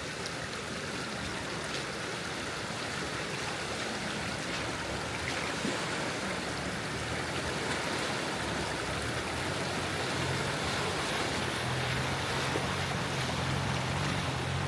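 Steady rush of a stream's running water. About two-thirds of the way through, the low hum of a vehicle engine comes in and grows louder, as of a 4x4 drawing near.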